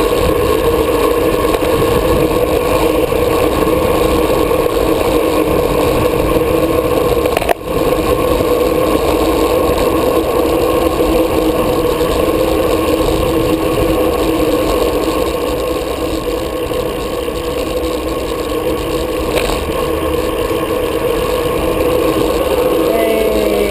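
Engine of the camera's motor vehicle running steadily at low speed, heard from on board, over a low rumble of wind noise.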